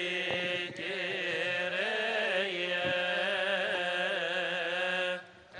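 Coptic Orthodox liturgical chant: voices singing a slow, melismatic line with long held notes that waver in pitch, breaking off about five seconds in.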